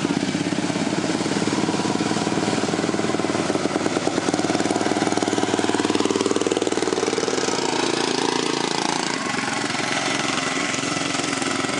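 Racing lawn mower engines running steadily, their rapid firing heard throughout, a little louder through the middle.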